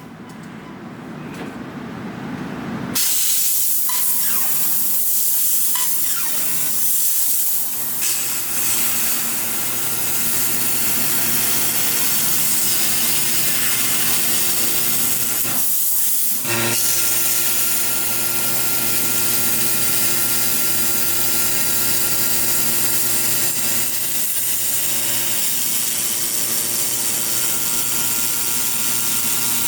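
High-power fiber laser cutter slicing thick steel plate: a loud steady hiss of assist gas and sizzling molten metal over a constant machine hum, breaking off briefly about halfway through before it resumes.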